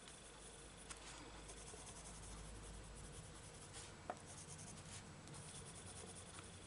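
Faint scratching of a lilac coloured pencil shading across a book page, with two light ticks about a second in and about four seconds in.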